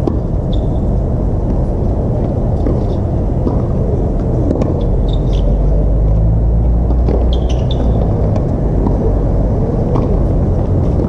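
Tennis rally on an outdoor hard court: sharp racket-on-ball hits and a few short high squeaks, over a loud, steady low rumble that swells for a few seconds in the middle.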